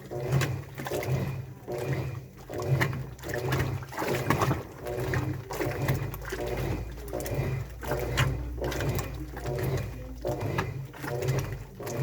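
Washing machine in its wash cycle: the drum turning with laundry and water sloshing, a motor hum rising and falling in repeating surges about once a second.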